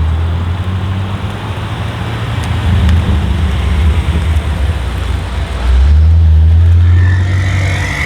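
BMW M5 F90's twin-turbo V8 running through a Supersprint aftermarket exhaust: a loud, deep, steady note that swells about six seconds in, with a faint rising whistle near the end.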